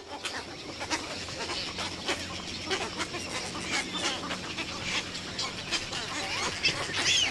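Nesting colony of egrets, herons and anhingas: many birds calling at once, short overlapping calls and clicks with some calls sliding up and down in pitch. The calling is the colony's breeding-season din of birds marking territory and disputing branches.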